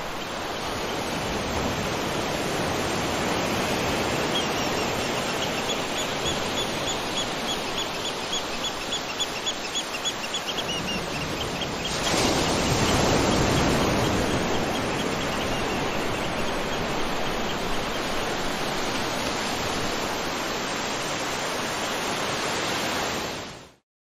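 Steady rush of falling water and rain, with a rapid, even series of high chirps from an animal between about four and twelve seconds in. About twelve seconds in the rush jumps louder, and it fades out just before the end.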